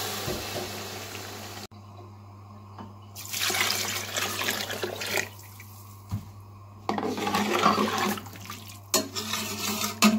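Water being poured into a large pot of chickpea masala, a steady rushing that cuts off abruptly about two seconds in and comes back briefly; later, the pot of water and chickpeas bubbling at a boil.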